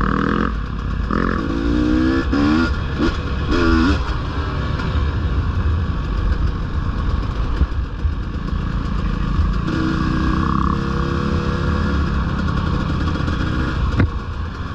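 Dirt bike engine running as it is ridden, its pitch rising and falling with the throttle in the first few seconds and then holding steadier. There is a sharp knock near the end.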